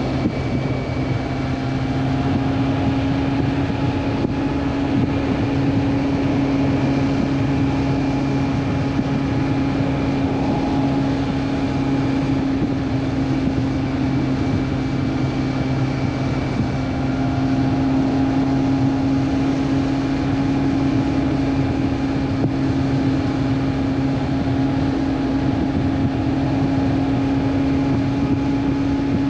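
Honda CB400 Super Four's inline-four engine running at a steady speed while the bike cruises, its engine note holding a constant pitch over a steady rush of wind and road noise.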